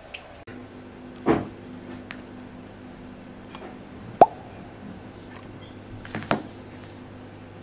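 Three short knocks as hard, cured bars of homemade olive-oil soap are handled over a wooden table; the one about four seconds in is the sharpest and loudest. A steady low hum runs underneath.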